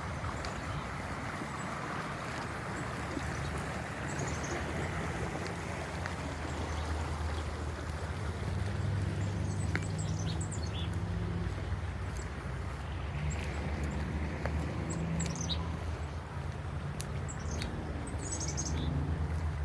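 Park ambience: flowing water hissing steadily, with songbirds giving short scattered chirps, more of them in the second half. A steady low rumble sits underneath.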